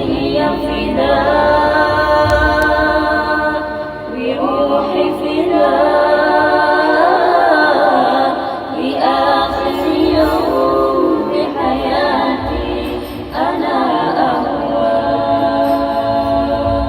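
A vocal group singing a cappella in harmony, in long held phrases with short breaths between them, to an Arabic lyric.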